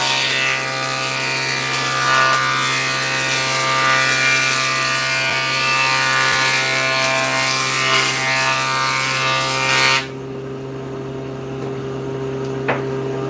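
Table saw cutting a long wooden board, a loud dense sawing noise over the motor's steady hum. The cut ends abruptly about ten seconds in, and the saw runs on unloaded with only its hum.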